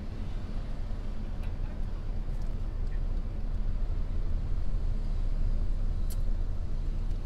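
Low, steady road and engine rumble of a car driving at city speed, heard from inside the cabin, with a small click about six seconds in.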